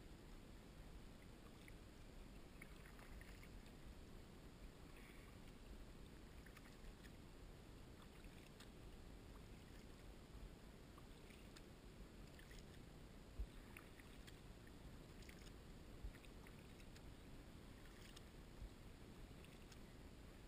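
Near silence: faint dips and drips of a double-bladed kayak paddle on calm water, with a few soft knocks.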